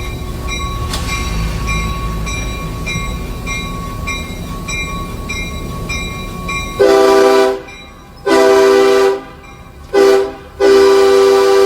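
Diesel locomotive running with its bell ringing steadily, then its air horn sounds four blasts, long, long, short, long: the standard grade-crossing warning signal.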